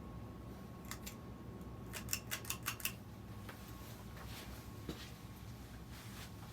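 A 1996 Universal top-mount spinner ceiling fan running with a steady motor hum. Two sharp clicks come about a second in, then a quick run of about six clicks a second later, with fainter ticks after.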